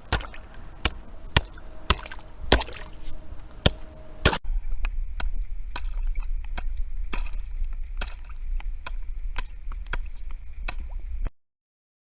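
Repeated sharp strikes, about one or two a second, with a low steady rumble under them in the second half; the sound cuts off suddenly near the end.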